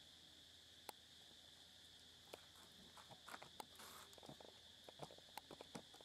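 Near silence with a faint, steady high drone of insects, broken by scattered soft clicks and taps, most of them in the second half, and a short rustle about four seconds in.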